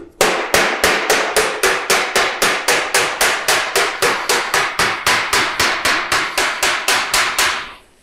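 Small hammer tapping rapidly and evenly on painted sheet-steel roofing, roughly five blows a second, as a folded seam corner is dressed flat. The hammering stops just before the end.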